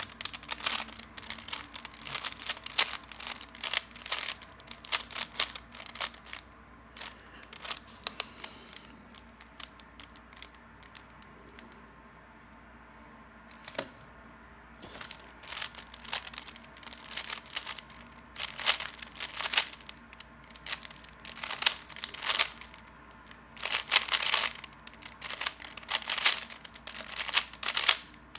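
A Rubik's Cube being turned fast by hand: rapid runs of plastic clicks and clatter. About nine seconds in the turning stops for some five seconds, then resumes in short flurries with brief pauses between them.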